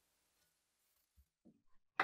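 Faint room hiss, then a few light metallic clicks and knocks in the last second, ending in one sharper click. The clicks come from pliers gripping and turning the rusted hose fitting on an old hand bike pump.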